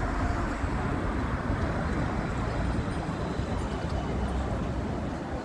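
Busy tram-stop street ambience: a steady low rumble from the tram standing at the stop and the traffic around it, with passers-by's voices mixed in.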